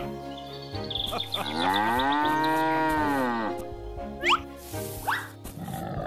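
A cow's long moo that rises and then falls in pitch, over cheerful background music, followed by two short rising whistle-like cartoon effects.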